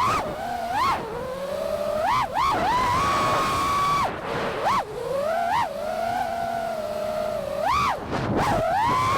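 FPV quadcopter's Flyfish 2207 1850kv brushless motors and props whining in flight, the pitch swooping sharply up and back down with several throttle punches and holding steady between them.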